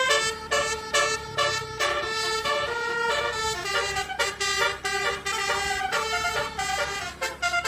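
Basuri telolet horn, a multi-tone musical air horn, playing a quick tune of short notes that jump from pitch to pitch, over a low rumble.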